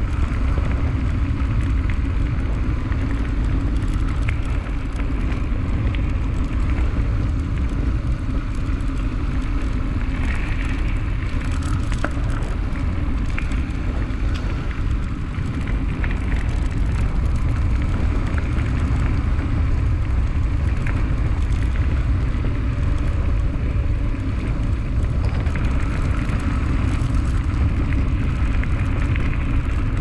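Steady wind rumble on the microphone of a handlebar-mounted camera, with the tyres of an Orbea Alma H30 mountain bike rolling over pavement and dirt track and a few light ticks and rattles from the bike.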